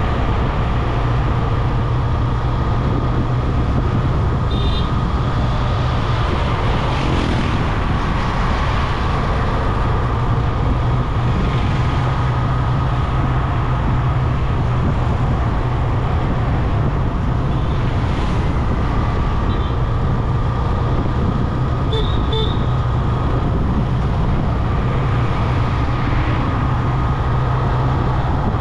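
Steady road noise of a motorcycle riding through town traffic: engine and wind rushing without a break. A few brief high vehicle-horn toots, one about five seconds in and a quick double toot later on.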